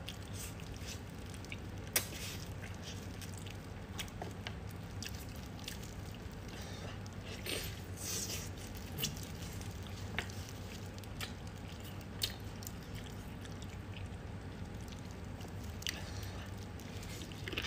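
Mouth sounds of eating braised pork trotter: wet chewing and biting through gelatinous skin and fat, with scattered short, sharp smacks and clicks over a steady low hum.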